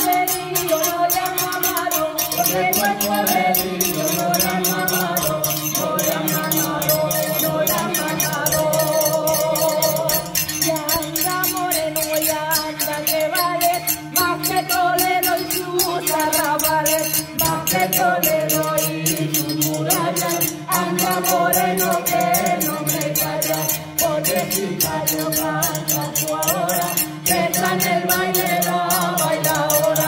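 Several voices singing a Spanish folk song together, with household objects played as percussion: a frying pan struck with a spoon, a small brass piece struck with a metal rod, a glass bottle and a clay pot. A fast, steady scraping rattle keeps time under the singing.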